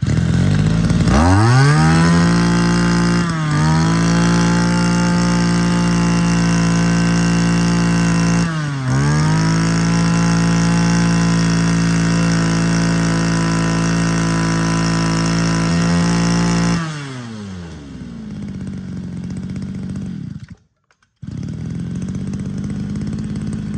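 Echo (Kioritz) brush cutter's small 23–24 cc two-stroke engine revving up to full throttle and held there at a high, steady pitch, dipping briefly twice and picking straight back up. About 17 s in it drops back to idle, and after a short break near 21 s it idles again. It revs very fast.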